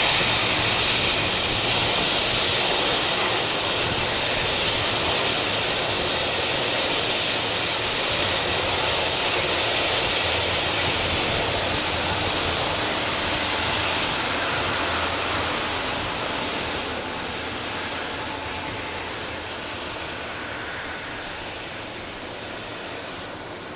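Boeing 757-200 jet engines at taxi power: a steady jet hiss and whine that slowly fades as the airliner rolls away down the runway, dropping off more from about two-thirds of the way through.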